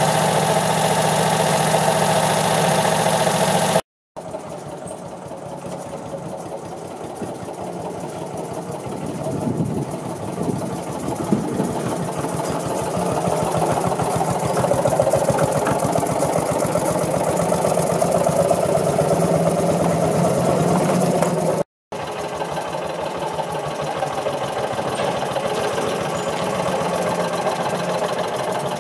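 Farymann engine of an IVO-Karren industrial cart running with a fast, even chugging, the level swelling and easing as the cart drives about. The sound drops out for an instant twice.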